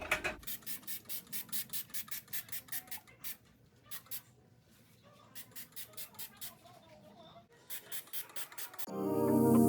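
A cloth or sponge being rubbed back and forth across a stovetop to wipe it clean, in quick scratchy strokes of about four a second, in three runs with short pauses between them. Music comes in near the end.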